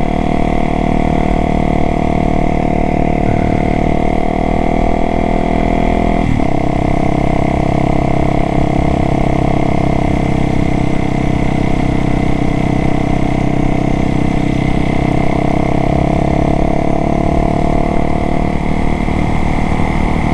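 Motorcycle engine running steadily under way, with a brief change in the engine note about six seconds in.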